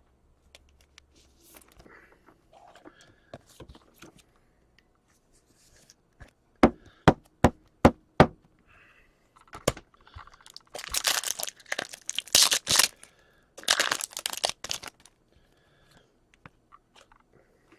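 Hockey card pack wrapper being torn open and crinkled, in two loud stretches in the second half. Before it come about five quick sharp knocks, with another a little later.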